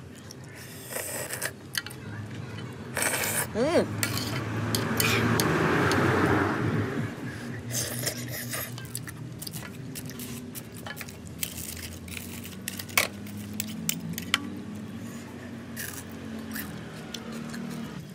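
Metal ladle and chopsticks clinking and scraping against a steel wok while fried noodles in gravy are stirred and lifted, with many sharp clicks and a louder rustling stretch about five to seven seconds in.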